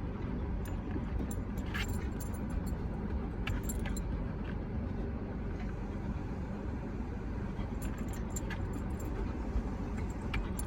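Car engine idling, a steady low rumble heard from inside the car, with scattered light clicks and jingles.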